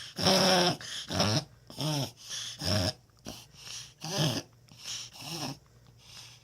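A dog making a rapid run of short, harsh, snorting breaths, about a dozen bursts each falling in pitch. The owner has been told this is a reverse sneeze, though he had wondered about coughing or choking.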